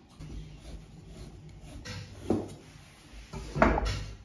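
Cut strips of floured hand-rolled noodle dough being slid and rubbed across a wooden board by hand, with two louder brief scrapes about two and three and a half seconds in.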